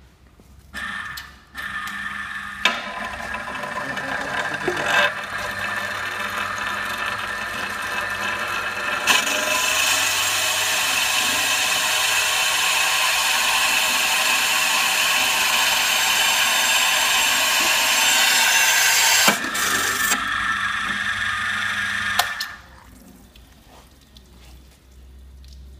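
Electric motor of a portable glass drilling machine running, its water-cooled diamond drill bit grinding through a glass sheet as the lever feeds it down. A steady whine with a grinding hiss that gets gradually louder, starting about a second in and stopping a few seconds before the end.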